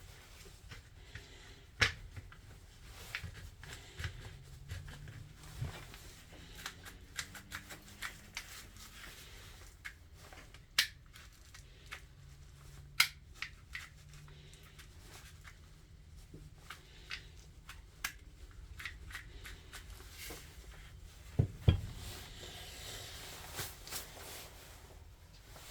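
Scattered light clicks and taps of small hard parts being handled, with a few sharper clicks about 2, 11, 13 and 22 seconds in; the grinder's motor is not running.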